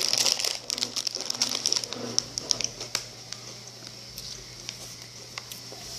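Rapid small clicks and crackles from snack packaging being handled, with a faint voice under the first two seconds. After that the clicks thin out to a scattered few.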